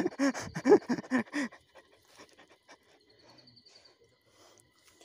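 A person panting hard in short, voiced gasps for about a second and a half, then faint footsteps and rustling on a dirt forest trail.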